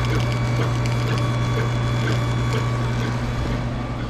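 Steady machine hum with a few light clicks and knocks over it.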